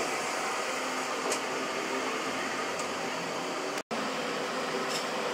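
Workshop machine tools running steadily: an even mechanical whir with a faint hum and a few light ticks, broken by a brief drop-out about four seconds in.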